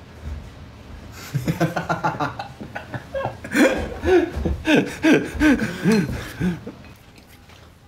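Laughter: a run of short pitched bursts starting a little over a second in and dying away after about six seconds.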